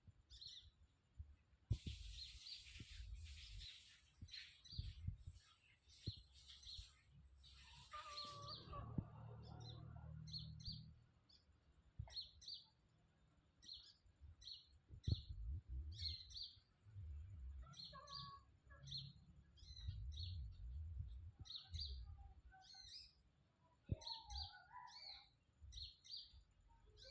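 Faint, short, high chirps of a small bird, repeated about once or twice a second through most of the stretch, over an intermittent low rumble.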